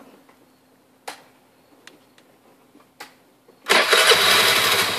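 Scooter engine started: after two faint clicks it cranks briefly, about three and a half seconds in, catches and settles into a steady idle.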